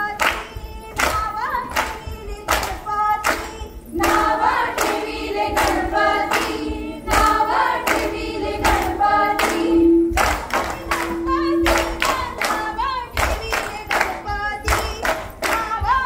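Group of women singing a fugdi folk song together, with steady rhythmic hand claps about two to three a second keeping the beat.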